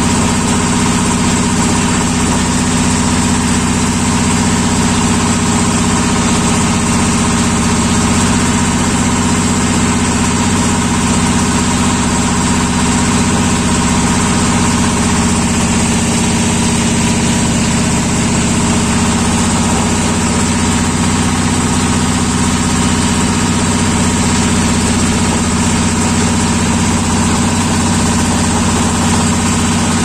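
A river boat's engine running steadily: a loud, even hum with no change in speed.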